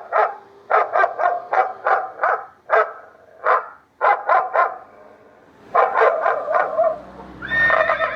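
Electronic novelty horn's loudspeaker playing a recorded dog-barking sound effect in rapid runs of barks, with a short pause about five seconds in. Near the end it switches to a horse-whinny effect.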